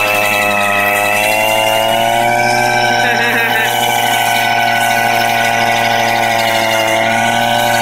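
Husqvarna chainsaw's two-stroke engine, mounted on a drift trike to drive its tire directly, running at high, fairly steady revs. The pitch rises a little about two seconds in and sags slightly near the end.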